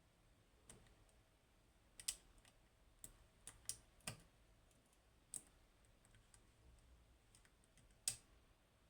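Lock pick working inside a Goal Z seven-pin Japanese pin tumbler lock, giving sparse, uneven clicks. The two sharpest come about two seconds in and near the end.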